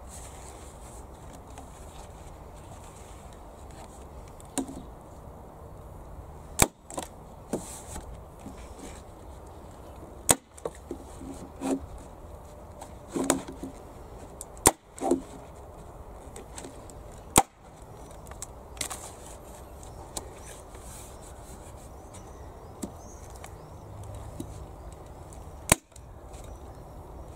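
Hand staple gun firing staples through damp course plastic sheet into the wooden sides of a planter box: about five sharp snaps several seconds apart, with softer knocks and handling noises between them.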